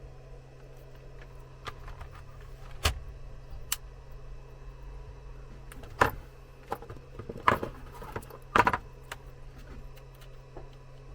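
Scattered clicks, light rattles and a few sharper knocks as small hard parts are handled on a workbench, the loudest knocks in the second half, over a steady low hum.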